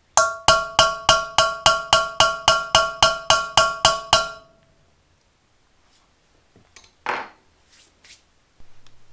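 Hammer tapping a steel punch set on a broken hardened-steel bolt in an aluminium motorcycle cylinder head, about fifteen blows at roughly three a second, each one ringing metallically. The bolt is being readied for drilling out and removal with an easy-out.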